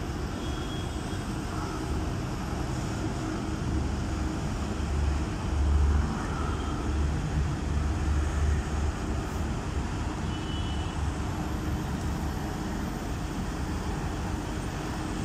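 Diesel engine of a Sany SY215C hydraulic excavator running with a steady low rumble, which grows louder for a few seconds in the middle.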